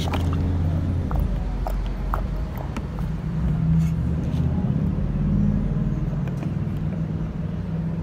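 Steady low hum of an idling motor-vehicle engine, its pitch wavering slightly, with a few faint clicks.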